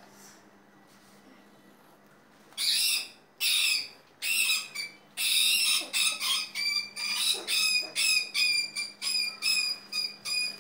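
A rat squealing over and over as cats hunt it: short, high-pitched squeals at a steady pitch, a few separate ones at first, then a rapid run of about two a second.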